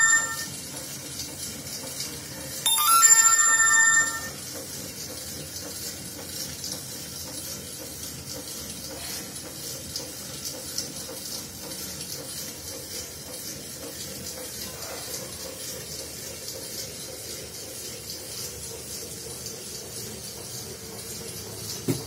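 A ringtone-like electronic tune sounds in two bursts of about a second and a half, the second ending about four seconds in. After that there is a steady faint hiss with a fine, rapid high-pitched ticking, and a single click near the end.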